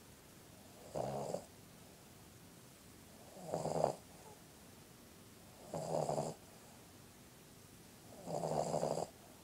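A sleeping puggle dog snoring: four snores about two and a half seconds apart, each lasting about half a second.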